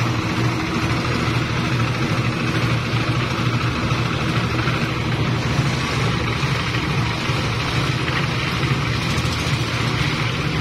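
Portable drum concrete mixer running: a small engine drones steadily while the tipped drum turns and wet concrete tumbles out with a gritty rattle.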